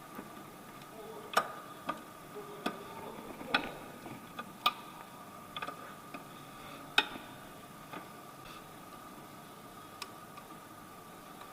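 Hand tools clinking and clicking on metal during work on the engine mount: about a dozen sharp, irregularly spaced clicks, the loudest about one and a half, four and a half and seven seconds in, over a faint steady high tone.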